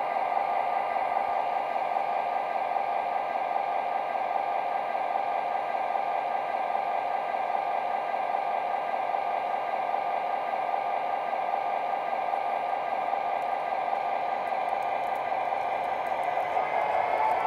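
MTH O-gauge Rio Grande F-unit diesel set running under its onboard sound system: a steady diesel engine drone with a high whine over it, along with the model's motors and wheels on the track. The pitch rises near the end.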